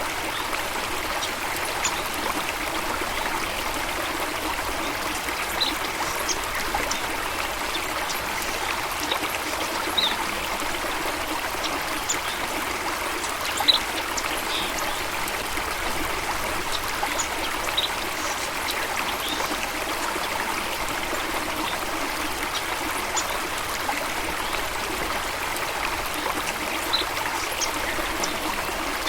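Steady rushing of flowing water from a stream or small waterfall. Short, high chirps or plinks sound here and there over it, one a little louder about 14 s in.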